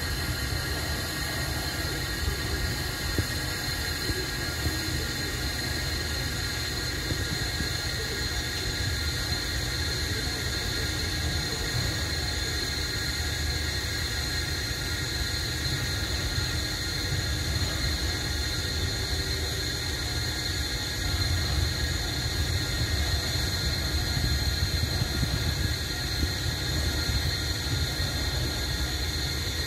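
Low, steady rumble of an Alsthom diesel locomotive shunting a cut of covered bogie wagons slowly away, with a steady high-pitched tone over it. The rumble swells a little about three quarters of the way through.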